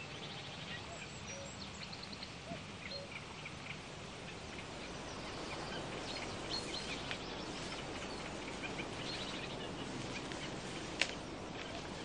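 Small songbirds chirping and giving short rapid trills now and then over a steady outdoor hiss, with a single sharp click near the end.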